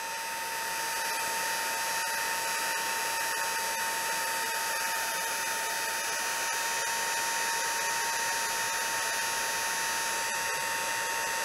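Stampin' Up! handheld heat tool blowing steadily, an even hiss of hot air with a thin steady motor whine, building slightly in the first second.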